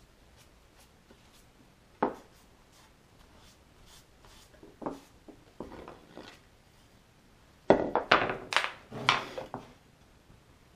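Hardwood chair legs and stretchers knocking and clattering on a wooden workbench as they are handled: faint rubbing of a rag wiping glue off a leg, a single sharp knock about two seconds in, then a quick run of louder wooden knocks near the end.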